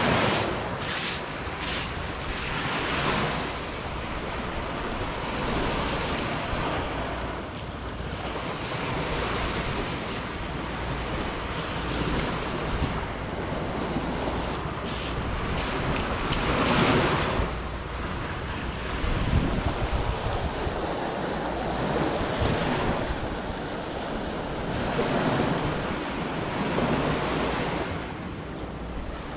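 Surf washing onto a sandy beach, swelling and easing every few seconds, with wind rumbling on the microphone.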